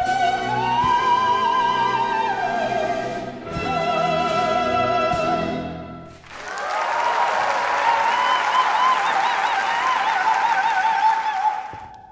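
Operatic soprano singing with a symphony orchestra, her voice carrying a wide vibrato through several phrases. About halfway through she moves onto a long held high note over the orchestra, which breaks off just before the end.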